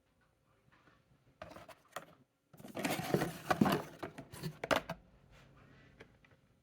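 Cardboard and plastic packaging being handled and pulled open by hand: scraping and rustling with sharp clicks, loudest in the middle.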